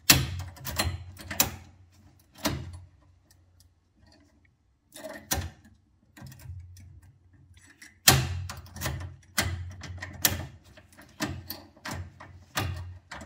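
Irregular clicks, knocks and small rattles of hand tools and parts being worked on a car's dashboard, near the ignition lock. There is a lull in the middle, then a busier run of clicks over the last few seconds.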